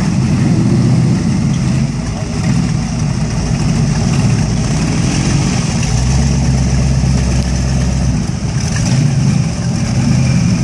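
Eight-cylinder motorcycle engine idling steadily, with a deep low rumble. About six seconds in the lowest notes swell for a couple of seconds, then settle back.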